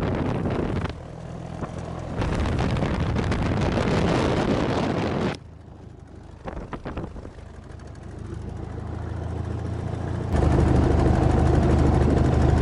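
The Fox Moth's Gipsy Major four-cylinder inline engine runs as the biplane taxis on grass, with wind rushing across the microphone. About five seconds in the sound drops away sharply. It then builds back up and settles into a steady, louder engine run with an even low beat near the end.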